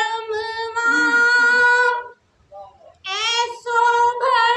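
A woman singing a sung poem unaccompanied into a microphone in a high voice, holding long notes. She breaks off for about a second midway, then sings on.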